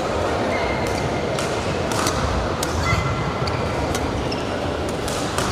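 Badminton shuttlecock being struck by rackets in a rally: sharp hits a second or so apart, with short high squeaks of shoes on the court mat, over the steady background noise of a busy sports hall.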